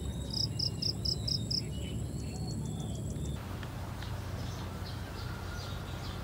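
Insects calling: a steady high-pitched buzz with a quick run of six chirps near the start. About three seconds in it cuts to a quieter background with a few faint chirps.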